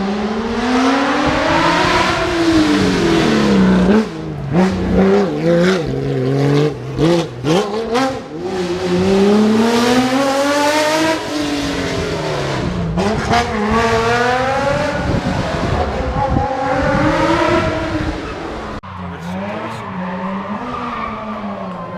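Rally car engine at stage pace, its revs repeatedly climbing and falling through gear changes and lifts, with choppy on-off throttle blips about four to eight seconds in. It drops to a quieter run near the end.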